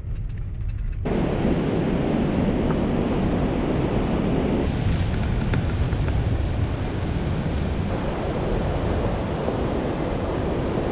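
Wind buffeting the microphone of a camera mounted outside a car driving along beach sand: a steady, rumbling rush that starts abruptly about a second in.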